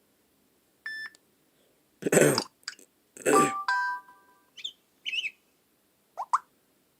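Samsung Galaxy S3 notification sounds previewed one after another through the phone's speaker: a string of short, different alert tones with brief gaps between them, among them a beep, a chime of a few notes, chirpy bird-like trills and two quick blips near the end.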